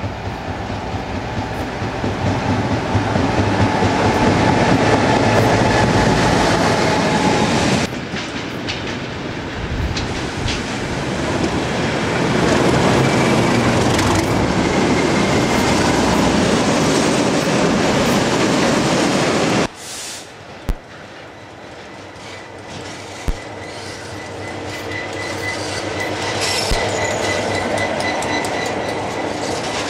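Diesel freight trains passing close by, heavy diesel locomotive engines running with loaded wagons rumbling and clattering over the rail joints. The sound cuts off sharply twice, about 8 s and 20 s in, between separate trains, among them a Class 60 and an EWS Class 66. The last train passes more quietly, with a few sharp knocks and a thin high squeal near the end.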